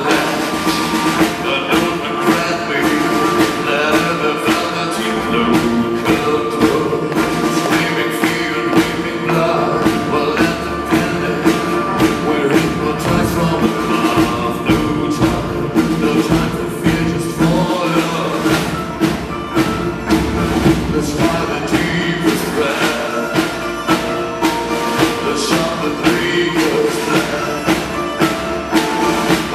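A rock band and orchestral ensemble playing a song live, with drums keeping a steady beat under sustained instruments and a male singer, recorded from the crowd at the front of the hall.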